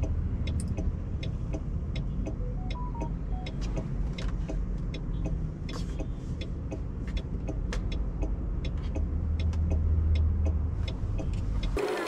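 Cabin noise of a Mahindra BE.6 electric SUV on the move: a steady low rumble from the tyres and road, with many scattered light clicks and ticks. The rumble grows louder around ten seconds in.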